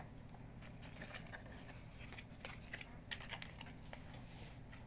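Faint, irregular crinkling and clicking of plastic packaging being handled and pulled open by hand.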